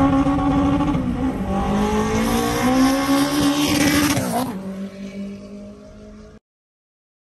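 Turbocharged Honda K24 inline-four in an EG Civic, heard from inside the cabin, pulling hard under full throttle. Its pitch drops at a gear change about a second and a half in, then climbs again until the throttle is lifted after about four and a half seconds, and it settles to a lower steady drone before the sound cuts off.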